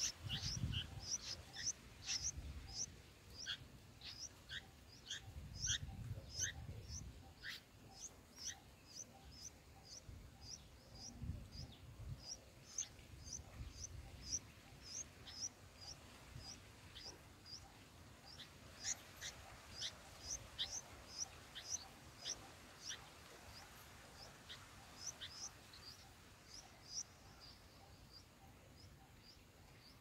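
Bulbul nestlings cheeping in the nest: short, high chirps repeated about twice a second, with a low rumble in the first several seconds.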